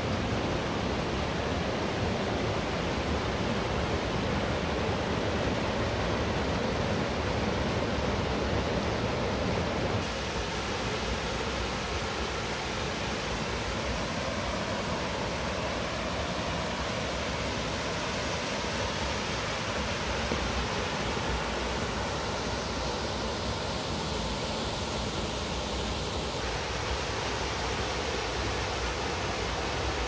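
Steady rush of running and falling water from the canyon stream and Ilıca Waterfall. It drops slightly in level and changes tone about ten seconds in.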